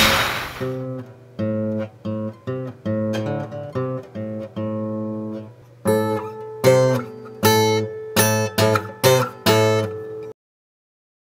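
Guitar music: single plucked notes, turning to louder strummed chords about six seconds in, then cutting off abruptly near the end. It opens with a sharp crash.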